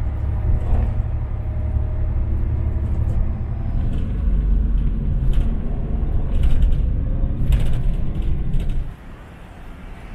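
Steady low rumble of a road vehicle running, most likely a bus, which drops away suddenly near the end.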